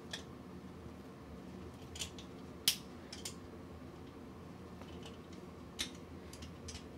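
Channel-lock pliers squeezing the plastic cap of a TE Romex splice connector down, pressing the unstripped wires onto its insulation-cutting forks: several short sharp clicks spread out, the loudest a little under three seconds in.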